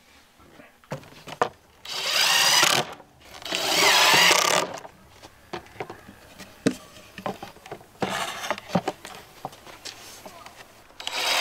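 Cordless drill running into wood in two bursts of about a second each, its pitch wavering under load, followed by light knocks and clicks of wood being handled.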